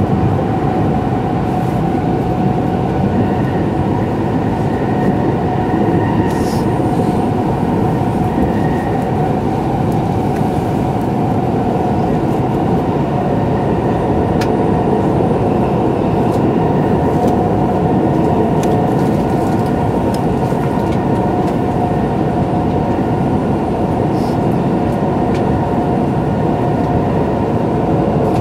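Inside the passenger cabin of a Nagano Shinkansen train under way: a steady, loud running rumble with a constant hum, and a few faint ticks.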